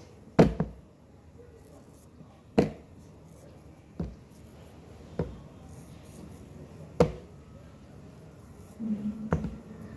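Six sharp knocks or taps, spaced one to two seconds apart, of kitchen utensils being handled while making pancakes.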